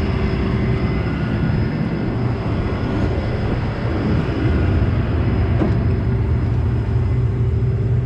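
Vehicle engine and machinery running steadily, a constant droning hum heard from inside the cab, with a couple of short clicks at the very end.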